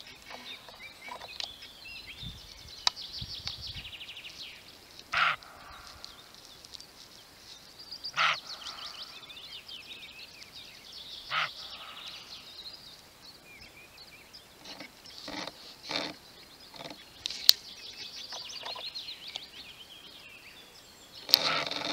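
Roe deer buck barking: repeated short barks a few seconds apart, with a longer, louder one near the end. A sharp click comes about three-quarters of the way through, and songbirds sing throughout.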